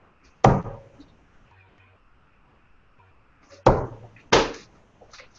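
Steel-tip darts striking a sisal bristle dartboard: three sharp thuds, one about half a second in and two more close together later on.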